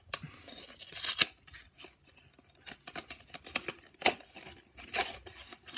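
Plastic wrap on a small cardboard toy box being peeled and torn off by hand: irregular crinkling and crackling with a few sharper snaps.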